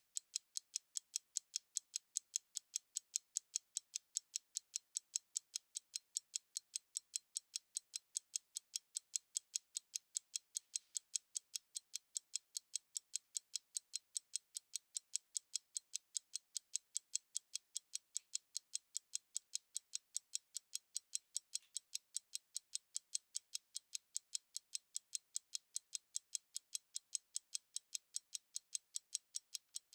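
Analog stopwatch ticking: rapid, crisp, evenly spaced ticks that keep an unbroken rhythm.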